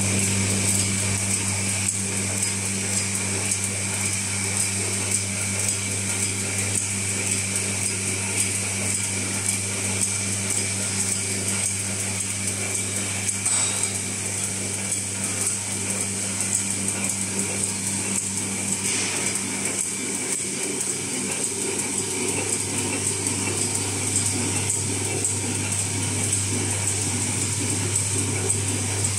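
Automatic packaging machine for wooden ice cream spoons running continuously: a steady low motor hum under a dense, even mechanical clatter from its feeder conveyor and wrapping mechanism.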